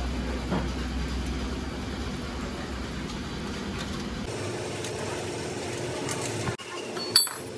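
A steady low engine hum that changes tone abruptly about four seconds in, with a sharp metallic clink near the end.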